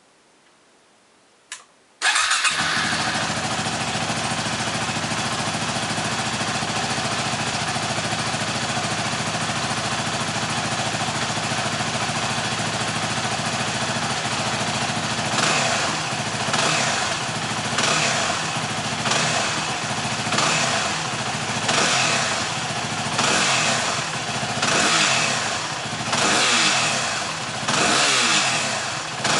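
Stock 2011 Yamaha WR250X's 250 cc single-cylinder four-stroke engine through its standard exhaust: a click, then the engine starts about two seconds in and idles steadily. From about halfway on it is revved in a dozen or so short throttle blips, about one a second, each rising and falling back to idle.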